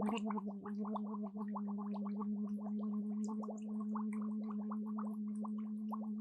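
A person gargling: one long voiced gargle held at a steady pitch, with rapid bubbling throughout, starting abruptly.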